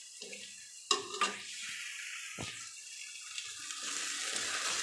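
A metal ladle clinks twice against a pressure cooker as boiled kidney beans are scooped up. Then chopped onions frying in a kadhai sizzle, growing louder near the end as they are stirred toward browning.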